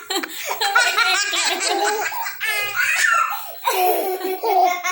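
A young child laughing hard in repeated high-pitched cackling bouts, with a short break about three and a half seconds in.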